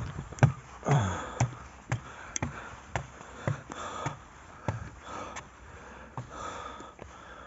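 Footsteps of a hiker climbing trail stairs, about two steps a second, with heavy breathing between them.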